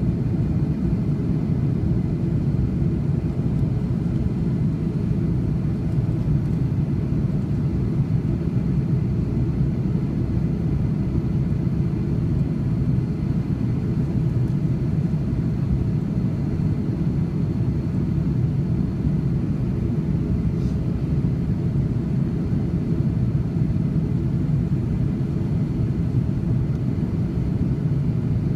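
Steady low rumble of jet engines and rushing air heard inside an airliner cabin while descending to land, with a faint high whine running under it.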